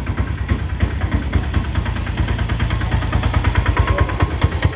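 An engine idling with a steady, rapid throb.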